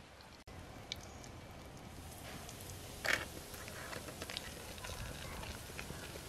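Masala-coated fish pieces going into hot oil in a metal pot over a wood fire, frying with a sizzle and spatter. A loud hiss comes about three seconds in as fish hits the oil, then a run of small crackles and pops.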